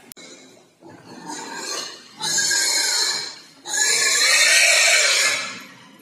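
Pigs squealing: two long, loud squeals, the first starting about two seconds in and the second following right after, each lasting over a second. Quieter pig noises come before them.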